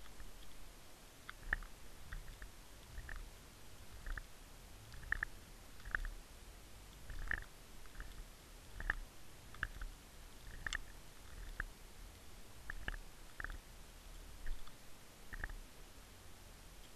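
Water Wolf underwater fishing camera recording through its housing at depth: a low rumble with soft clicks and knocks at irregular intervals, roughly one a second.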